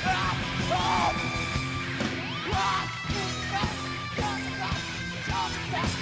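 Rock band playing live, with a singer yelling over the music.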